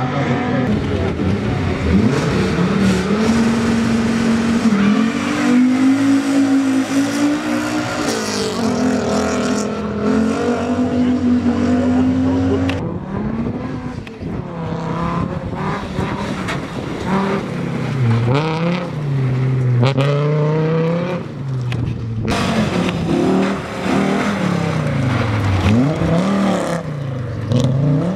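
Rally car engines being driven hard on a gravel course, revving high and dropping back as the cars brake, slide and accelerate. About halfway through the sound changes abruptly, and from then on the engine pitch rises and falls over and over.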